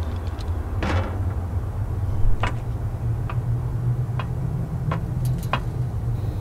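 Steady low city rumble, with a brief rustling swoosh about a second in, then a run of light clicks less than a second apart: footsteps on a metal fire-escape grating.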